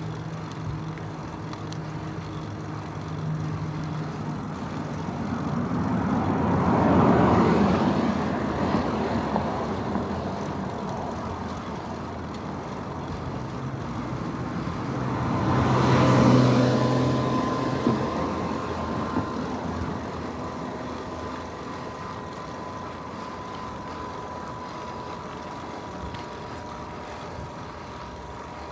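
Two motor vehicles passing close by, one after the other, each swelling up and fading away, about seven and sixteen seconds in. A steady background rumble runs underneath.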